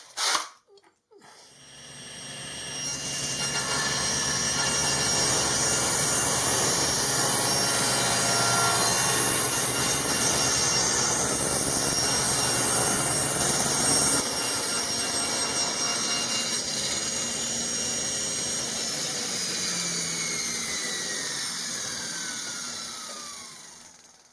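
An electric motor spins up about a second in and runs at a steady high speed with a whine. About halfway through it drops off and winds down, its whine falling in pitch until it stops near the end.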